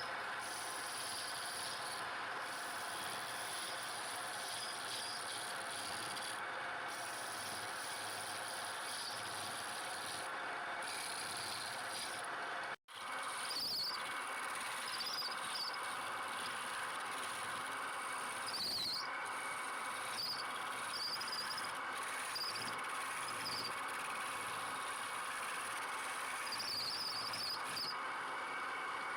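Steady scraping noise of a turning tool cutting wood on a lathe, with a brief total cutout about thirteen seconds in. Short high chirps come through in the second half.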